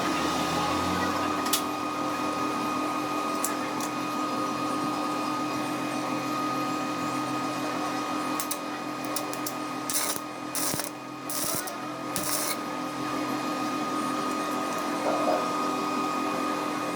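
A machine running steadily with a constant hum and whine, with a few clicks and four short bursts of hiss about two-thirds of the way through.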